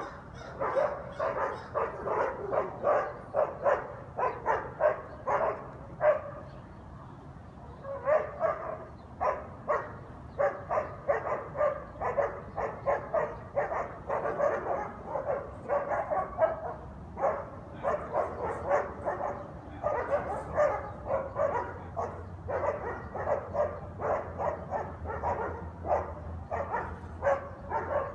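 Guard dogs barking nonstop, rapid repeated barks a couple or more per second, with a brief pause about six seconds in.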